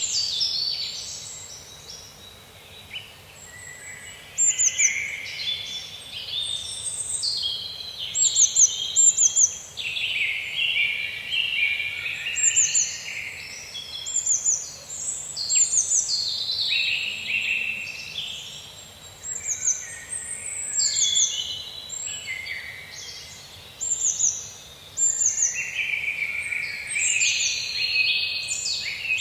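Forest birds singing, one quick phrase after another of high chirps and short falling whistles, over a faint steady background hiss.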